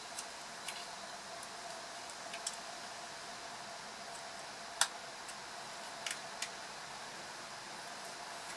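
Small plastic clicks and ticks from a Fiat Albea engine ECU harness connector being unlatched by hand and with a small screwdriver, over a steady hiss. The sharpest click comes about halfway through.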